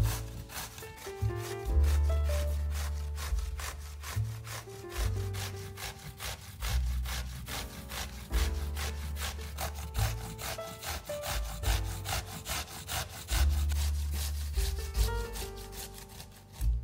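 Rhythmic strokes of vegetable preparation, about five a second, over background music with a bass line and melody.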